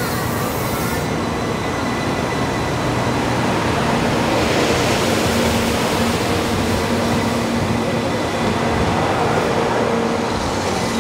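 Type 923 Shinkansen inspection train (Doctor Yellow) moving along a station platform: a steady rumble of wheels on track with a faint low hum. It grows a little louder about four seconds in.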